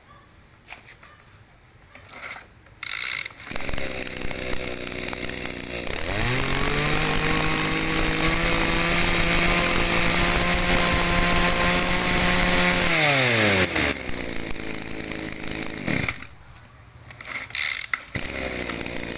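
Echo 24cc two-stroke brush cutter pull-started and running: after a few seconds at idle it is throttled up to a high steady whine for about seven seconds, then falls back to idle. Near the end it goes quiet briefly and runs again.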